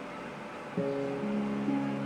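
Background music of plucked guitar, with a new set of held notes coming in a little under a second in.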